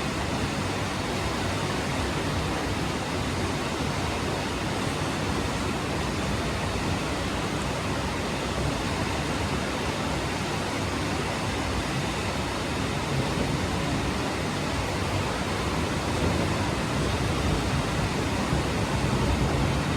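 Steady, unbroken rush of falling water.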